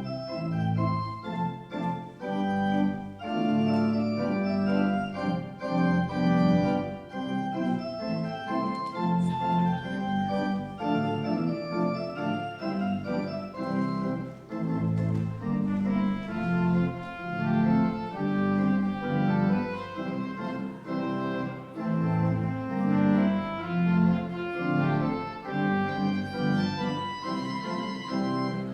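Organ playing a postlude: sustained chords with moving lines above and below, changing every second or so.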